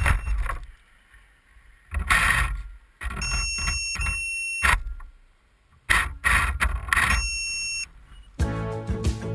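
RC monster truck's brushless electric motor (Hobbywing 150A, 1800kv on 6S) given several short bursts of throttle, each a steady high whine with rattling noise, while the truck stays put: its transmission is broken. Background music comes in near the end.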